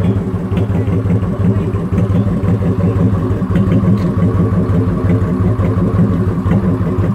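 V-twin cruiser motorcycle engine idling steadily with a low, pulsing exhaust note.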